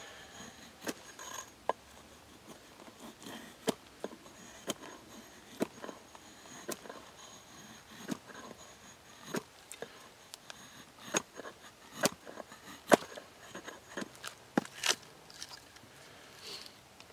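Hand-forged carving axe chopping into a wooden blank held on a chopping block: a string of sharp, irregular knocks, about one or two a second, as the blade bites into the wood.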